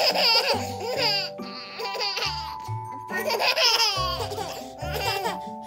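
Two one-year-old babies laughing in bursts of high giggles, once at the start and again about three seconds in, over background music with a steady bass line.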